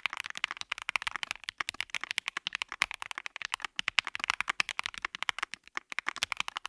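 CKW80 mechanical keyboard in its top-mount build, with Marshmallow switches and GMK keycaps on an FR4 plate, typed on quickly and without pause: a dense run of keystroke clacks.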